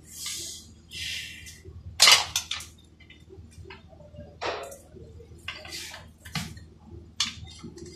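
Hand tools clinking and scraping against metal under a car's transmission: a string of short clinks and scrapes, the sharpest about two seconds in, with brief hissy rasps in between.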